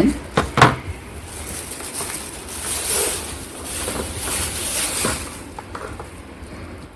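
Unboxed items and their packaging being handled: a couple of sharp clicks in the first second, then a crinkly rustling for a few seconds that fades near the end.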